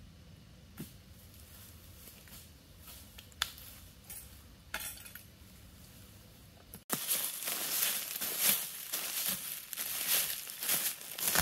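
A few faint clicks and clinks of small objects being handled. About seven seconds in, much louder footsteps start, crunching and crackling through dry leaf litter.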